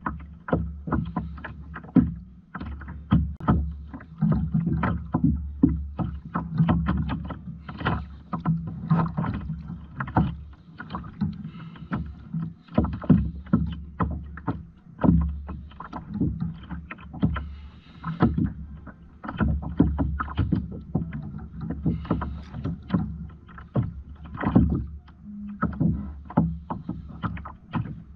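Kayak moving on the sea: water splashing and slapping against the hull, with many irregular sharp knocks, over a steady low hum.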